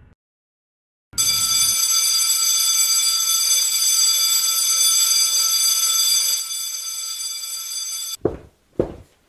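Electric bell with a metal gong ringing continuously, starting about a second in and stopping abruptly near the end. It is followed by two footsteps on a hard floor.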